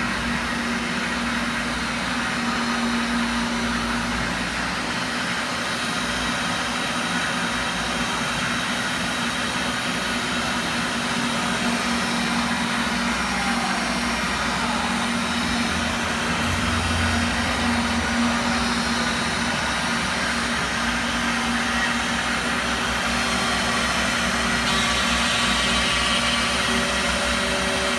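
CNC machine running: a steady motor hum and whirring noise that holds level throughout, with a slight rise in hiss near the end.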